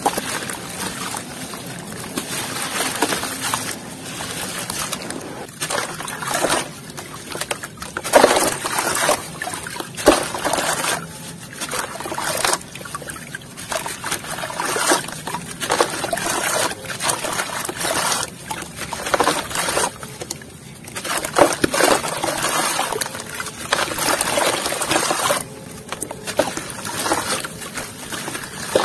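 Hands crumbling water-soaked sand-cement and clay chunks into a basin of water: wet, gritty crunching in irregular bursts, with falling bits splashing and water trickling and sloshing.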